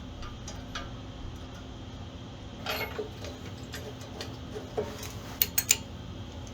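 Scattered light metallic clicks and clinks of bolts and tools being handled, with a few sharp clicks close together near the end, over a faint steady hum.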